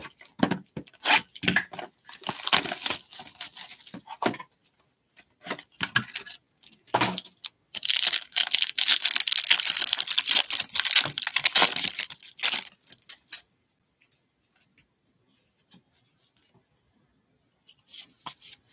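A foil trading-card pack wrapper being torn open and crumpled by gloved hands: a dense crinkling that starts about halfway in and lasts some five seconds. Before it, a run of sharp clicks and rustles from handling and opening the card box.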